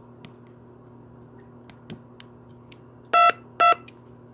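A TP5088 DTMF encoder sounds two short, loud DTMF tone beeps about half a second apart through a small Radio Shack mini speaker, which makes the tone sound harsh and buzzy. A few small clicks come before the beeps as the BCD rotary switch that selects the encoder's 4-bit input is turned.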